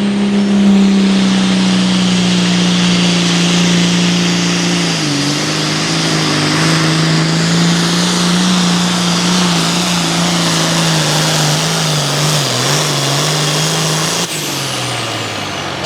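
Turbocharged diesel farm tractor running at full throttle under heavy load, pulling a weight-transfer sled. The engine note holds steady, dips about five seconds in and then sags slowly lower as the sled bears down. About fourteen seconds in it drops off abruptly as the pull ends.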